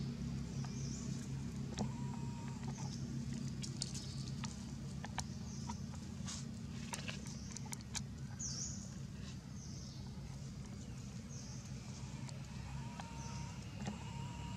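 Dry leaves rustling and crackling in sharp little clicks as a baby macaque forages among them, over a steady low hum. A short high chirp repeats about every second and a half.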